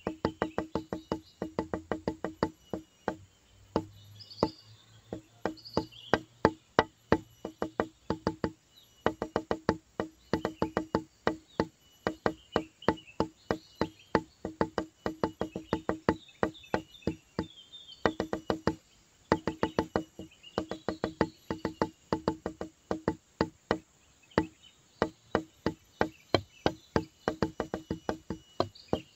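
Background music made of quick runs of sharp, wood-block-like clicks in a rhythm, broken by short pauses every few seconds.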